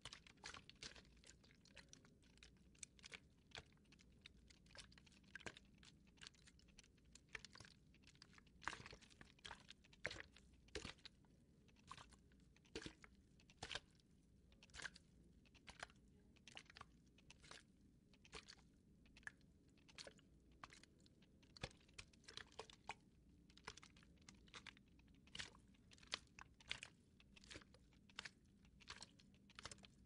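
Wet watery sludge squelching: a quiet, irregular run of short wet pops and squishes, a few every second.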